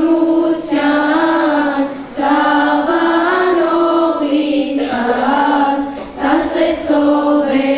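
A group of children singing a slow melody in unison, in held phrases broken by short pauses.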